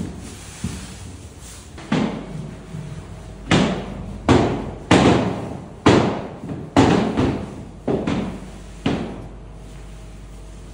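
Heavy thuds on a kitchen work surface, about eight of them roughly a second apart, each ringing out briefly.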